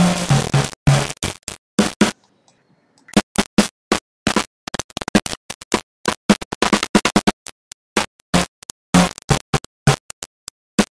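A piece of music played back at only 3 and then 2 bits of depth. It is chopped into harsh bursts of noisy distortion with abrupt silent gaps where the quieter parts round to nothing. This is very high quantization noise, so the quality is very low.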